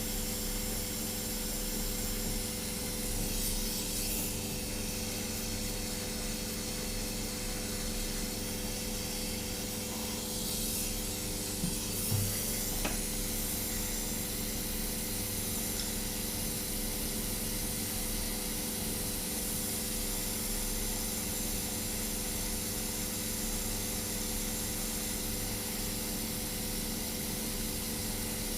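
Hydrogen/oxygen soldering torch hissing steadily over a steady electrical hum, with a few light clicks about twelve seconds in.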